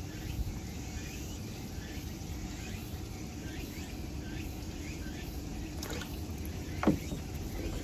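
Water in a shallow outdoor turtle tank stirred by a hand reaching in to release a turtle, over a steady low rumble and faint repeated short chirps. Near the end, one short sharp sound sweeps quickly down in pitch and is the loudest moment.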